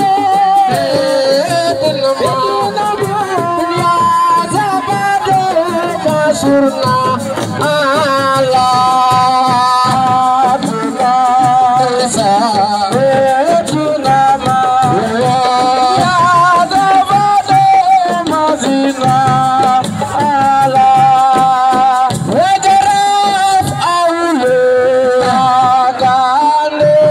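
Senegalese assiko music: a lead singer's voice over drums and rattles, loud and continuous.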